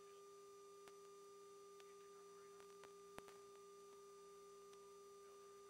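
Near silence on a radio intercom line: a faint steady electronic tone, with a few faint clicks, the loudest about three seconds in.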